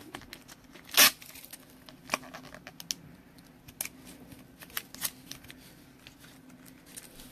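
Trading card and plastic card sleeve being handled: one short, loud rustle about a second in, then scattered light clicks and rustles.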